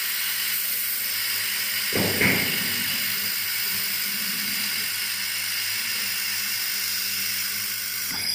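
A hand-held laser welder with a wire feed welds a steel tube joint, giving a steady hiss with crackling spatter that cuts off at the end as the beam stops. A brief louder pop comes about two seconds in.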